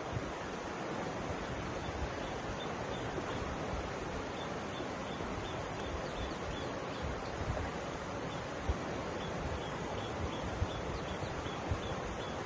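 Mountain river flowing over rocks: a steady, even rush of water. A faint, high chirp repeats about twice a second through most of it.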